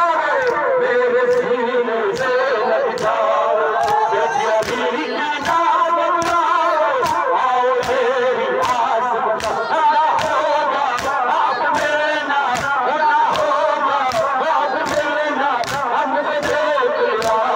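A crowd of men chanting a Shia noha in unison, without instruments, cut through by sharp rhythmic slaps about twice a second from the mourners striking their chests (matam).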